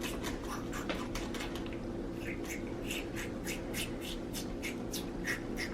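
Handheld spray bottle squirted over and over: a quick run of short, sharp hissing sprays, about three to four a second, over a faint steady hum.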